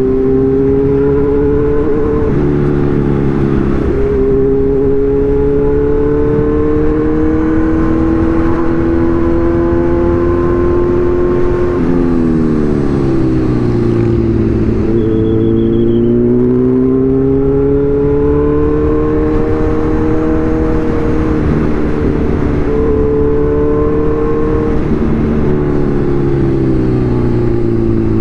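Kawasaki Z1000's inline-four engine and exhaust while riding: the revs climb steadily, with short steps in the first few seconds, drop away at about twelve seconds as the bike slows, then build again.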